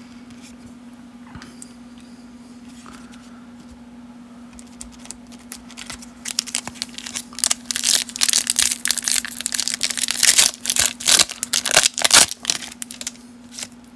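Foil wrapper of a 1991 Leaf Studio baseball card pack crinkled and torn open by hand: a dense run of crackling starting about five seconds in and stopping just before the end.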